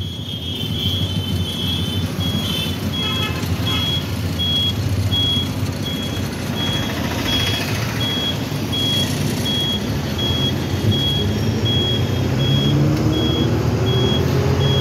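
Lorry's diesel engine running under an evenly repeating electronic beep, about two beeps a second: the truck's turn-signal buzzer sounding as it signals a right turn. Near the end the engine note rises as it pulls away.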